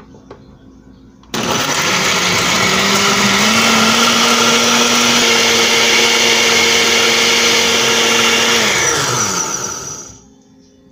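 Countertop blender with a glass jar grinding tomatoes, onion and garlic with water into a purée. The motor starts abruptly about a second in, runs steadily at full speed for about seven seconds, then winds down with falling pitch near the end.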